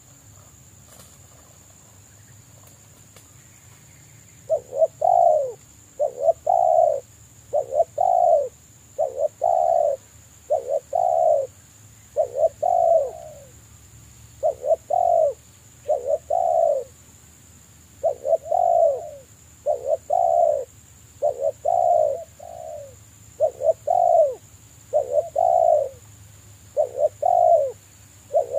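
Spotted dove cooing: a long series of repeated coos, mostly in pairs, beginning about four seconds in and carrying on without a break.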